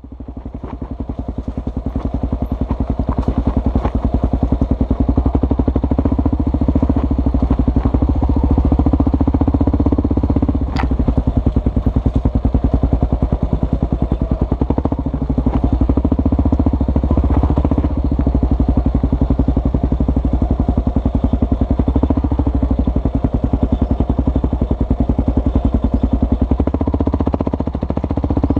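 Kawasaki KLR650's single-cylinder four-stroke engine running steadily while the motorcycle is ridden, a dense rapid pulsing. One sharp knock comes about eleven seconds in.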